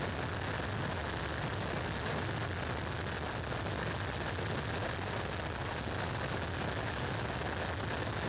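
Steady roar of a KC-130J tanker in flight, heard from aboard: its four turboprop engines as a steady low drone under a rush of airflow.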